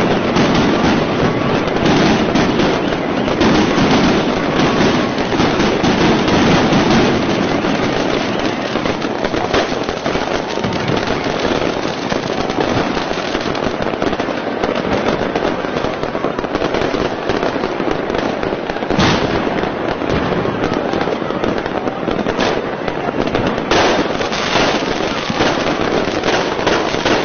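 Many fireworks and firecrackers going off at once across a city, a dense, unbroken crackle of bangs heard from high above. The crackle is heaviest in the first few seconds, and there is one sharper bang about two-thirds of the way through.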